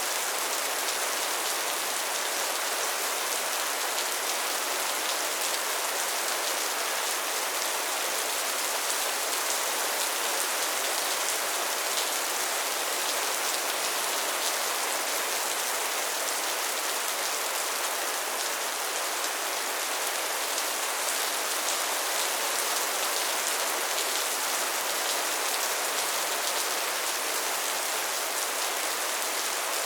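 Steady rainfall: an even, unbroken hiss with a fine patter of drops, mostly high in pitch with almost no low rumble.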